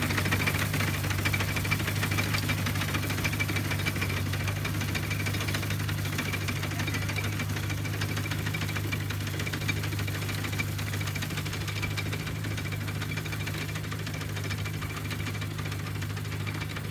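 Tractor engine running steadily as it tows a McCormick reaper-binder cutting wheat, a constant drone with rapid fine ticking and clatter, growing slowly fainter as the outfit moves away.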